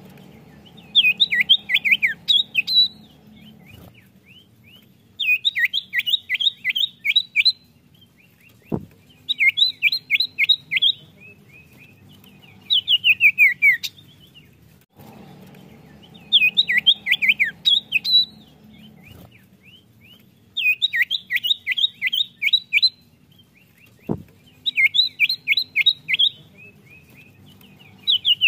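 Common iora singing: bursts of rapid, downward-slurred whistled notes, each burst lasting about two seconds and repeated every few seconds. Two short clicks are heard between bursts.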